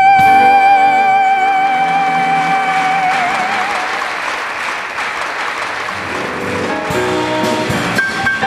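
A woman singing the held final note of a jazz ballad with vibrato over the band, fading out about three seconds in, as audience applause rises and then dies away. Near the end the band starts the next tune.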